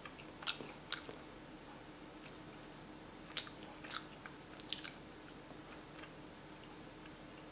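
A person chewing a soft bite of vegan tamagoyaki (rolled omelette made from silken tofu and chickpea flour), with a few short, faint wet mouth clicks scattered through. A faint steady hum underneath.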